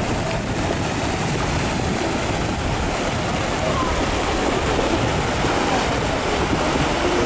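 Flash-flood front of mud and debris advancing over a dry sandy riverbed: a steady, unbroken rushing noise of churning water and debris.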